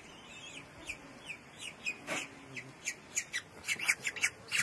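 Peregrine falcon chick calling while being handled: short, high chirps that fall in pitch, sparse at first and then faster and louder from about three seconds in.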